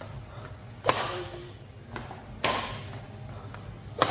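Badminton rackets striking a shuttlecock in a rally of long clears. Three sharp hits come about a second and a half apart, and the last and loudest is the near player's overhead swing.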